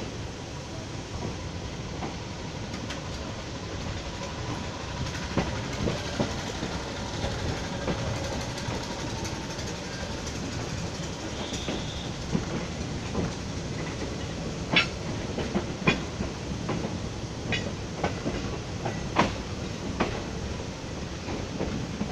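Passenger-coach wheels rolling over the station's points and diamond crossings: a steady rumble with sharp clacks as the wheels strike the crossing gaps, which come more often in the second half.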